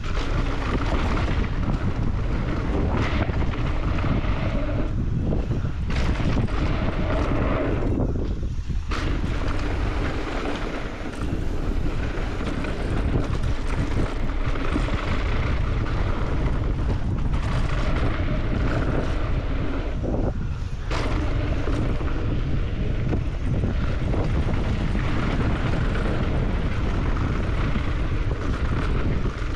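Wind rushing over the camera microphone, mixed with the tyre roar and rattle of a mountain bike running fast down a dirt trail. The noise eases briefly twice, about eight and twenty seconds in.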